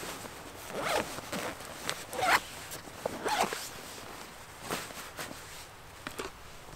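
Zip of a camera backpack pulled open in several quick strokes, the loudest a little over two seconds in.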